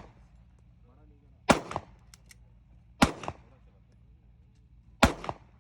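Three single gunshots at a shooting range, spaced about one and a half to two seconds apart, each sharp crack followed about a quarter second later by a fainter second report.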